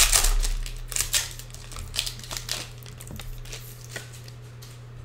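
Foil trading-card pack wrapper being torn open and crinkled by hand: a quick run of sharp crackles that thins out after about three seconds.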